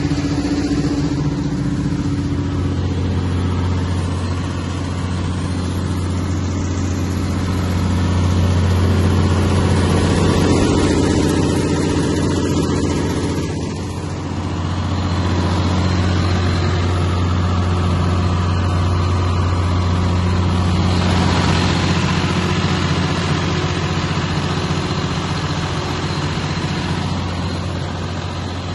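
Cummins M11-G2 inline-six diesel engine of a 250 kW generator set running at steady governed generator speed, a constant low even drone.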